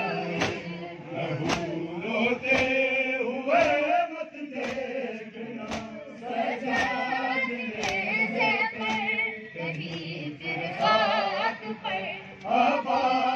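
A crowd of men chanting a lament in unison. Sharp slaps of hands striking chests (matam) land together about once a second, keeping the beat.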